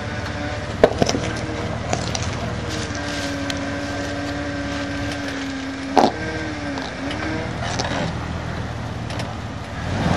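Jeep engine running steadily at low revs as it crawls up a rock ledge, with two sharp knocks, one about a second in and one about six seconds in.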